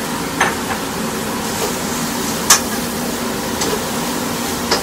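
Chicken pieces frying in chili paste in a nonstick wok, with a steady sizzle, stirred with a metal utensil that clicks and scrapes against the pan a few times, loudest about halfway.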